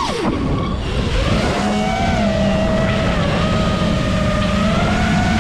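FPV quadcopter's electric motors and propellers whining, heard from the onboard camera. The pitch dives sharply as the throttle is chopped at the very start, climbs back over about a second, then holds with small rises and falls as the throttle is worked.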